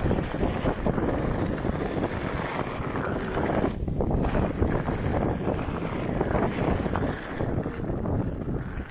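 Wind buffeting the microphone of a camera riding a Onewheel along a dirt trail: a steady, gusty rumbling rush of noise.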